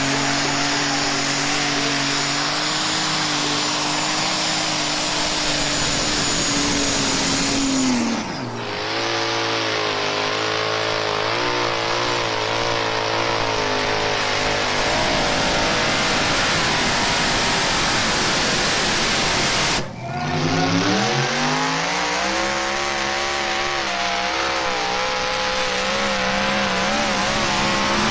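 Pulling tractor's engine running loud and steady, then dropping in pitch about eight seconds in as it eases off. After a brief break about twenty seconds in it climbs in pitch again.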